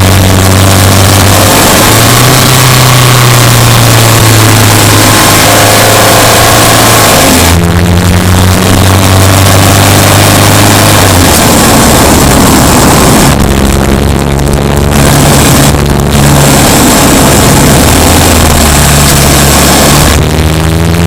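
Subaru Impreza Sport's 2.0-litre flat-four engine running while the car is driven, with a dense rushing noise over it. The engine note shifts up and down in steps several times as the engine speed changes, rising about two seconds in and dropping back near eight and eleven seconds.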